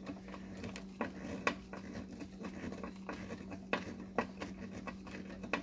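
T20 screw being turned by hand into the ABS plastic bracket of a headlight housing, with scattered small clicks and scratches of screwdriver and plastic. A steady low hum runs underneath.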